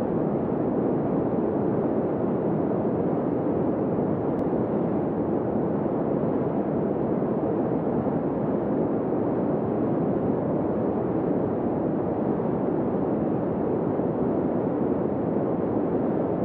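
A steady, even rushing noise with no tone or rhythm, fading in at the very start and then holding level.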